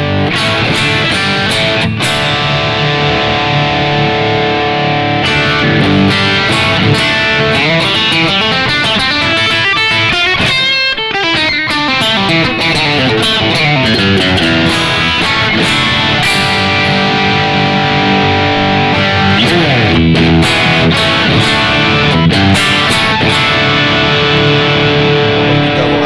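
Electric guitar, a Squier Stratocaster Affinity, played through a Yamaha THR10X amp on a distortion setting: continuous playing of chords and single notes, with long sliding pitch glides about ten seconds in and again around twenty seconds.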